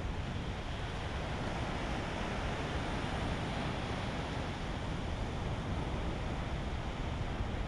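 Steady sea surf washing against a rock jetty, with low wind noise on the microphone.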